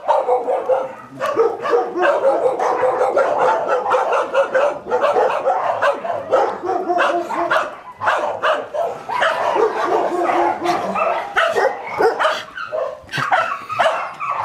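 Many dogs barking and yipping at once, overlapping without a break.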